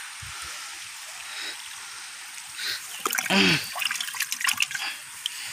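Water trickling and splashing over a steady hiss. A busier run of quick splashes and clicks comes about three to five seconds in, with a brief voice at its start.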